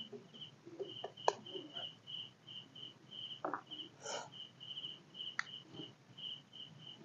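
Crickets chirping steadily in a regular pulsed rhythm, about two or three high chirps a second, with a few faint clicks.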